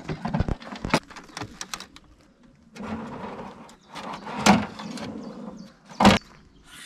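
Parts of a folding camp kitchen being handled during assembly: scattered clicks and knocks with bouts of scraping and rustling, and one loud sharp knock about six seconds in.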